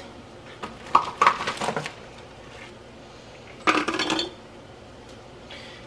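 Frozen grapes scooped out of a plastic bag with a measuring cup about a second in, then poured through a plastic funnel into a glass mason jar near the four-second mark, clattering and clinking against the glass.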